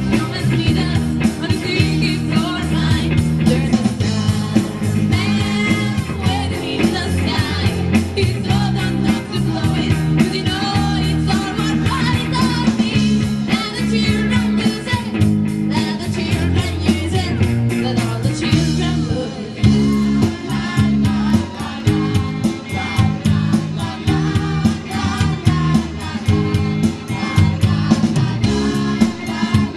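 Live rock band playing, with a woman singing lead over electric guitar, bass and drums.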